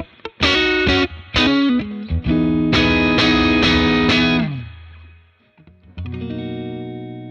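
Electric guitar, a Fender Stratocaster, played through a Dr. Z Maz 38 Senior Reverb 2x12 combo amp: a few picked chords and notes, then a held chord whose pitch sinks away about four and a half seconds in. A last chord is struck about six seconds in and left ringing, slowly fading.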